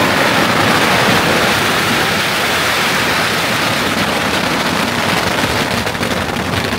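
Strings of firecrackers going off at close range. The bangs come so fast that they merge into one continuous crackle at a steady level.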